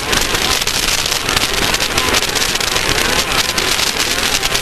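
A Class 1600 off-road race car running at speed. The engine is buried in a loud, steady rush of wind and road noise, with a dense scatter of small clicks and rattles.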